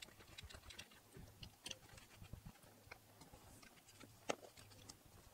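Faint clicks and taps of 3D-printed plastic parts being handled, as the toothed plastic rack is fitted into the winder housing, with one sharper knock about four seconds in.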